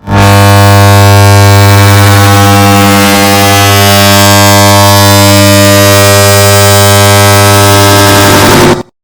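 Air conditioner's start-up hum, stacked and amplified into a very loud, distorted, low-pitched buzz. It starts abruptly, holds steady, and cuts off sharply near the end.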